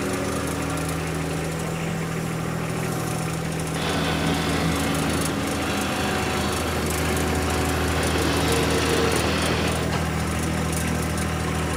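John Deere subcompact tractor's diesel engine running steadily under light load while the tractor pushes snow with its rear blade. A steady hiss joins the engine about four seconds in.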